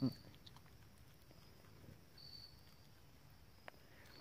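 Faint handling noise of vine fibre being twisted by hand into cordage: soft rustling with scattered small clicks, the sharpest near the end, after a short voice sound at the very start.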